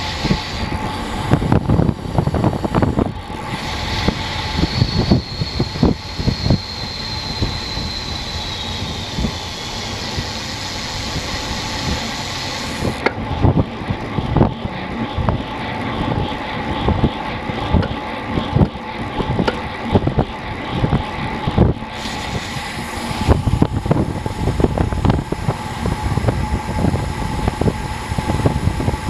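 Wind rushing over an action camera's microphone on a road bike descending at about 30 mph, with tyre and road noise and frequent small knocks from bumps. The hiss eases about halfway through as the bike slows to about 15 mph for a bend, then returns as it speeds up again near the end.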